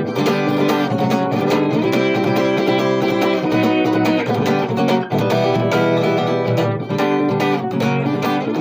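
Acoustic guitar strumming chords in an instrumental passage, with no singing.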